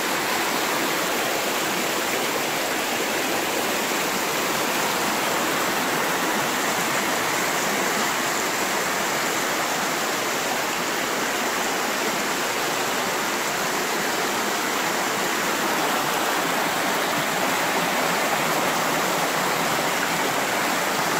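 Fast-flowing floodwater rushing through a flooded street, a steady rush of water with no pauses.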